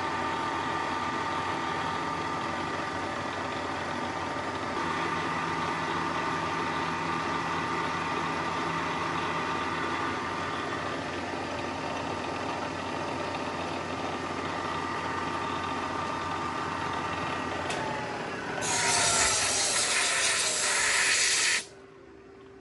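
Milling machine running steadily with its motor whine, which winds down in pitch about eighteen seconds in as the spindle is shut off. This is followed by a loud hiss lasting about three seconds that cuts off abruptly.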